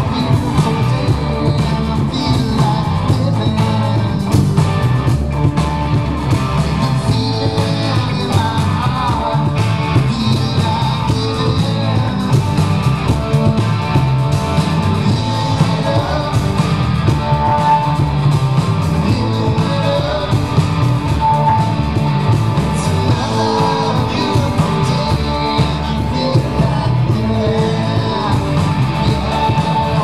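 Rock band playing: electric guitars and a singing voice over a steady drum beat.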